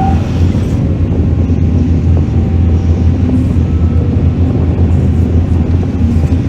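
Heavy diesel engine of a mining excavator running steadily with a constant low drone.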